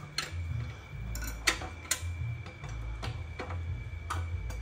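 Light metallic clicks and taps of a hand tool working the bolts of a motorcycle engine's cylinder head during teardown: about seven sharp ticks at irregular intervals.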